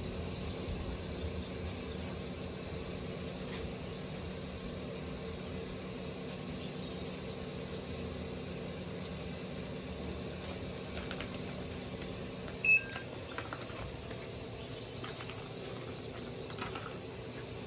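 A steady low motor hum, with a few light clicks and taps in the second half and one short high chirp about 13 seconds in, the loudest sound here.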